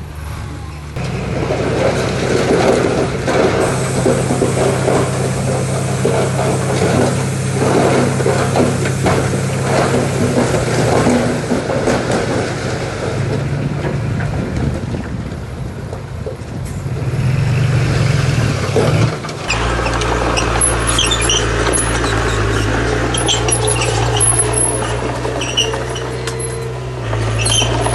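Heavy diesel earthmoving machinery working, engines running with clattering; about 19 seconds in the engine note changes to a deeper steady drone, and short high squeaks come through after that.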